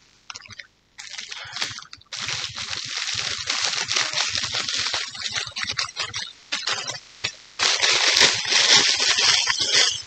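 A clear plastic gift bag crinkling and rustling as its ribbon is untied and the bag is pulled open. The rustling is irregular, starts about two seconds in and is loudest near the end.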